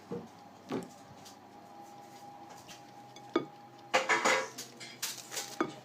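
Kitchen dishes and utensils clinking and knocking: a few separate knocks, then a quick cluster of clatter about four seconds in, over a faint steady tone.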